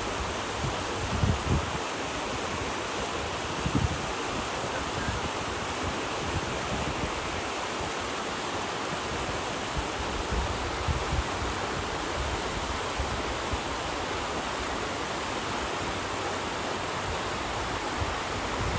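Steady rush of river water flowing over rapids, with wind buffeting the microphone in low gusts a few times.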